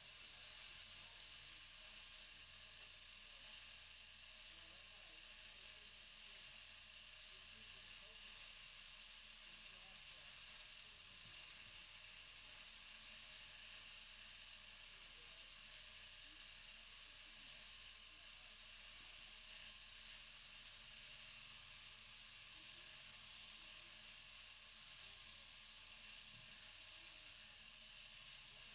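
Faint, steady buzzing hiss of an electric sheep-shearing handpiece running as it clips a ewe's fleece.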